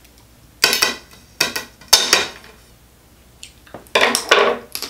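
Wet sucking and lip-smacking as spicy seafood-boil sauce is sucked off fingers, in a string of short bursts, with a clink of a metal knife against the table near the end.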